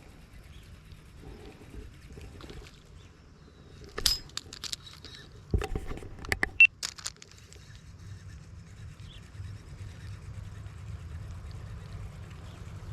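A few sharp clicks and knocks with brief high squeaks, about four seconds in and again in a louder group around six to seven seconds, over a faint low wind rumble.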